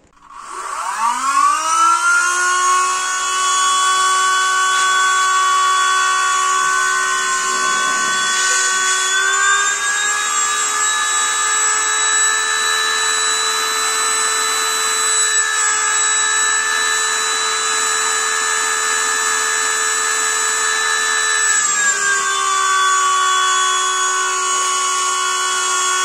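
Homemade centrifugal high-pressure fan with a brushless electric motor, spinning up within about two seconds to a loud, steady, high-pitched whine at about 27,000 rpm. Its pitch steps up about ten seconds in and drops back about twelve seconds later.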